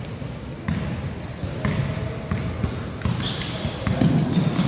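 Basketball game in a gym: background chatter from spectators, with short high squeaks of sneakers on the court floor and a ball being dribbled.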